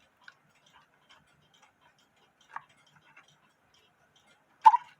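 Faint ticking of a quarter-hour cuckoo clock's movement, with a slightly sharper click about two and a half seconds in and a louder short knock near the end.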